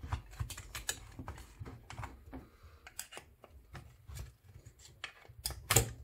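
Irregular light clicks and taps of a Type 2 EV charging connector's plastic shell and rubber boot being worked apart by hand, with a few louder clacks about five and a half seconds in.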